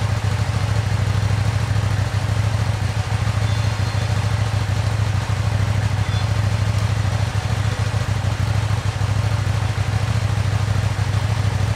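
KTM 790 Duke's parallel-twin engine idling steadily through an Akrapovic slip-on exhaust.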